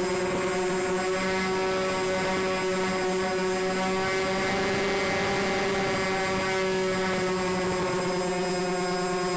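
Motors and propellers of a model C-124 Globemaster running steadily in flight, a droning hum of several tones heard from a camera on board the plane.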